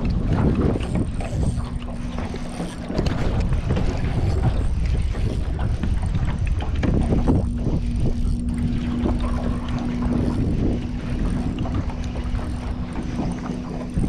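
Wind rumbling on the microphone of a boat under way, with a steady low hum that drops out for a few seconds in the middle.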